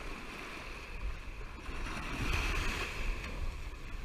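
Shallow surf washing in over sand around wading bare feet, a steady hissing wash that swells a little about two seconds in.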